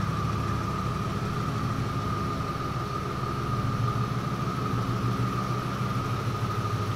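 2003 Audi RS6's twin-turbo V8 idling steadily with its mufflers removed, a deep even rumble while it warms up, echoing in an enclosed parking garage. A steady high whine runs over the rumble.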